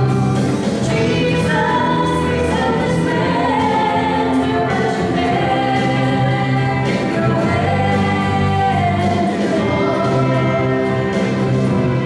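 Live praise band playing a song: voices singing a melody over keyboard, electric guitar, bass guitar and drums.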